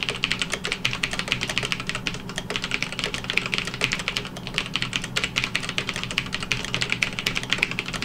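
Continuous fast typing on an EVGA Z10 mechanical keyboard with Kailh brown switches: a dense, steady patter of keystrokes, several a second, heard through a lavalier microphone.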